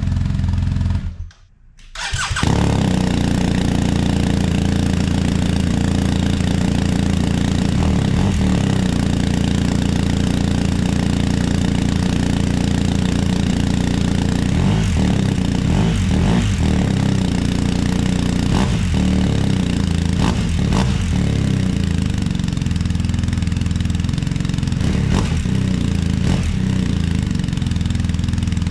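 BMW R1250GS Adventure's boxer twin idling steadily through a GRmoto slip-on exhaust. The sound drops out briefly about a second in, then the idle carries on.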